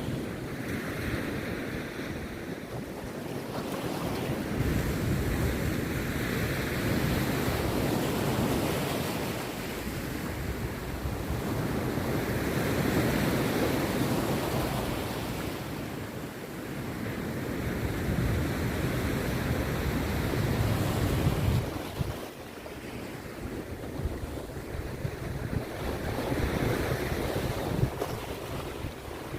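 Rough sea surf breaking on a beach, swelling and easing every several seconds, with wind buffeting the microphone.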